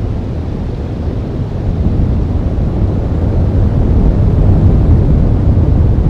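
Wind buffeting an outdoor camera's microphone: a loud, steady low rumble with no distinct tones, swelling a little louder about halfway through.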